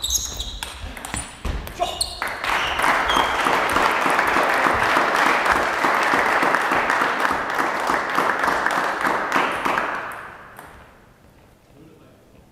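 Table tennis ball clicking off bats and table at the end of a rally for about two seconds, then spectators applauding the point for about eight seconds before the clapping dies away.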